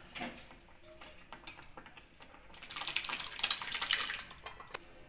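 Cooked, mashed moong dal poured into a pot of cooked sago: a wet sloshing and splattering that starts about halfway through and lasts about two seconds, after a few faint utensil knocks.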